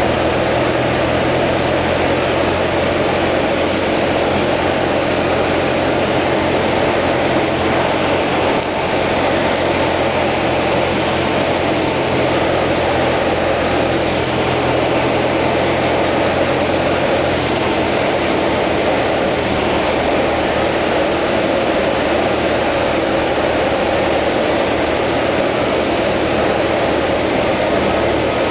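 Steady drone of a Cessna 172's piston engine and propeller heard inside the cabin on final approach and landing; the low engine tones shift about two-thirds of the way through.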